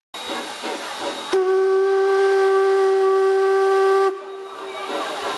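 Steam whistle of the steam locomotive 475.179 'Šlechtična' sounding one steady blast of about three seconds, starting about a second in, with a hiss of steam around it.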